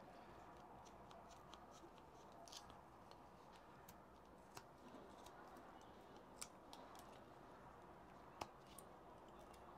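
Carving knife slicing small chips from a wooden block: faint, scattered sharp clicks of the blade cutting through wood fibres, the loudest near the end, over low hiss.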